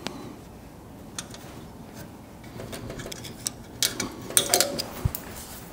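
Small metallic clicks, taps and rattles of hands working a loose tension spring off the handle mechanism of a Cannular can seamer, getting busier about halfway through, with a dull knock near the end.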